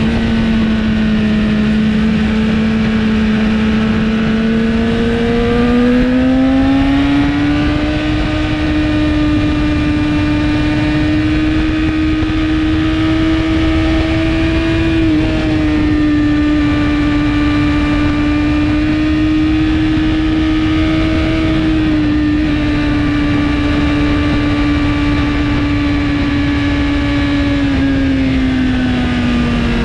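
2017 BMW S1000RR's inline-four engine through an Akrapovic exhaust, ridden at speed on track. The engine note climbs to a higher, steady pitch about six seconds in, holds there with a couple of brief dips, and drops back near the end. Heavy wind rush lies under it.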